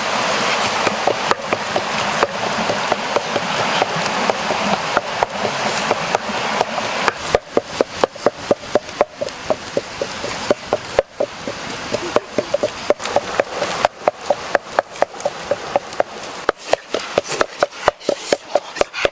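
Running stream water, then, about seven seconds in, a wood cooking fire crackling with many rapid sharp pops.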